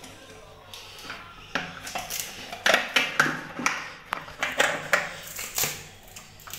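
White plastic toilet fitting scraping and grinding against the ceramic pan as it is twisted and rocked by hand. About a dozen uneven rasping strokes start about a second and a half in and stop near the end.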